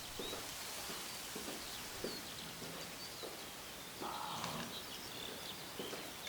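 Morning ambience: birds chirping in short scattered calls over a steady background hiss, with a few soft knocks.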